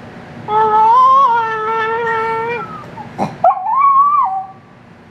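Small chihuahua-dachshund mix dog howling: one long, fairly steady howl of about two seconds, then a brief sharp noise and a second, shorter howl that rises higher and drops away.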